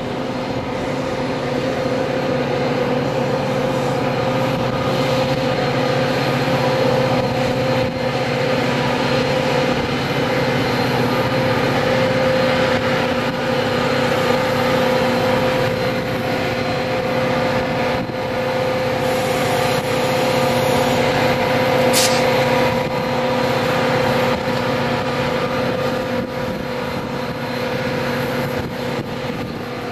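Metra F40PH diesel locomotive No. 118 standing with its EMD 645 two-stroke V16 diesel engine running, a steady loud drone with a constant hum. A single brief sharp sound comes about 22 seconds in.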